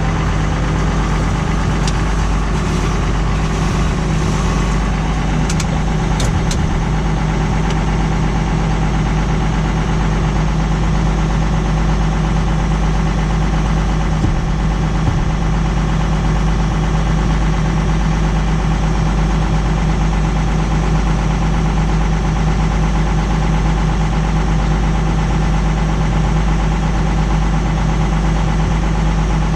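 Tractor engine running steadily under load while ploughing, with a couple of brief faint clicks about six seconds in.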